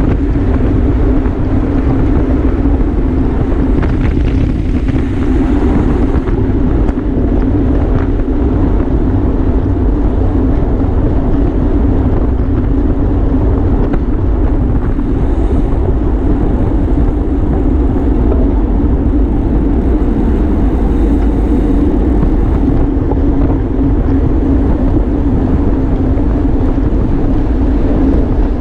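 Steady rush of wind and tyre and drivetrain noise from a road bike racing at speed, a dense, unbroken hum with no clear events.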